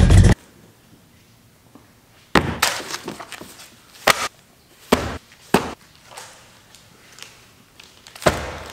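A loud sound cuts off abruptly at the very start, followed by five sharp impacts at irregular intervals, each dying away quickly, the last one the loudest.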